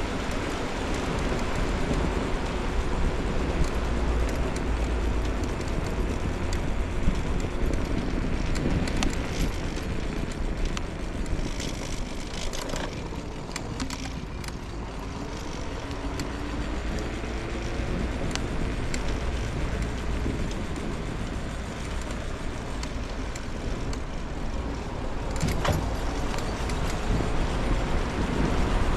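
A scooter ride along a city street, with the steady low rumble of wheels on pavement and wind, and car traffic passing. A vehicle goes by about halfway through, and there are a few sharp clicks near the end.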